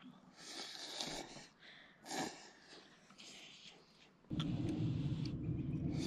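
Slurping and eating ramen noodles, with one short sharper sound about two seconds in. About four seconds in, a louder steady low rumble starts suddenly.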